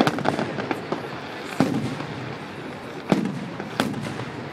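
Fireworks salute: a quick run of crackling pops at the start, then three sharp bangs of shells bursting, each echoing briefly.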